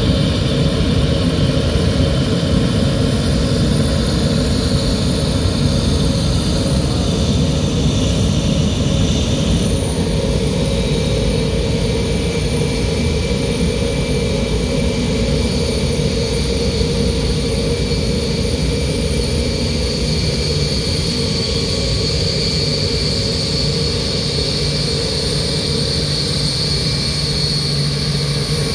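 Lockheed L-1011 TriStar being towed by a tug: a steady high turbine whine over a low engine rumble.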